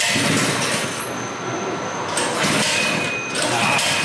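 Recoil pull-starter on a mini bike's small single-cylinder Harbor Freight engine, yanked about three times, turning the engine over with each pull.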